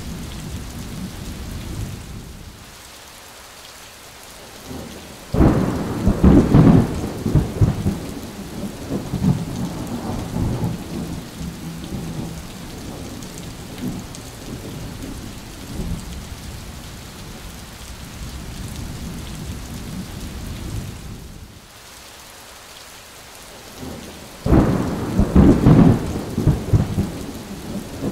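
Steady rain with two thunderclaps: a sudden crack about five seconds in that rumbles away over a few seconds, and another near the end.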